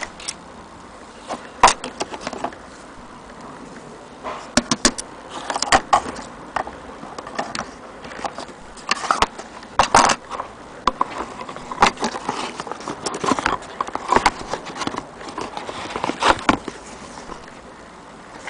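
Small hard objects being handled: irregular clicks, taps and knocks, some in quick clusters, over a steady low hiss.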